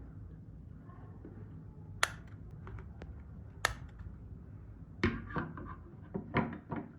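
Sharp clicks and light clatter of metal hand tools being handled and set down: two separate clicks, then a quick run of several clinks near the end, over a low steady hum.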